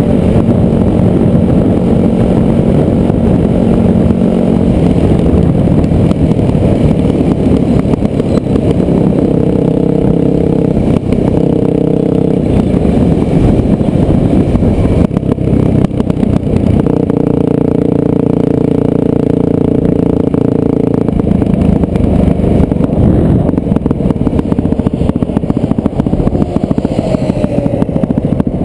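Off-road vehicle engine running loud and close, its revs holding for a few seconds at a time and then shifting up or down with the throttle.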